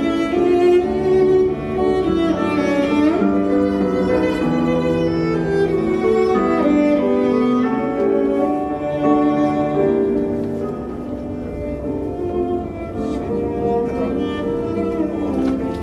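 Music played on bowed string instruments, several sustained notes sounding together and moving from note to note.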